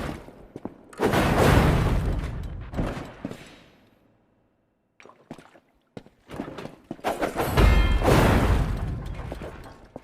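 Sword-combat sound effects: two heavy hits, about a second in and about seven and a half seconds in, each followed by a long fading rumble, with a few light clicks between them.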